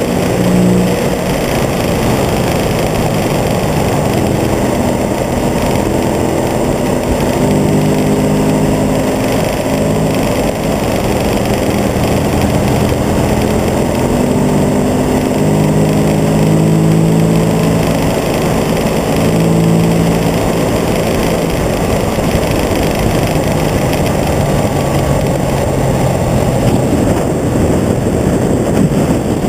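V-twin motorcycle engine running at highway speed, heard from the bike itself, under heavy wind rush; the engine note steps up and down a little as the throttle changes, and the wind covers most of it near the end.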